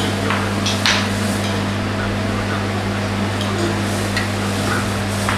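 Wooden mallet knocking on a wooden pound-a-peg toy bench: two sharp knocks in the first second, then a few faint taps, over a steady low hum.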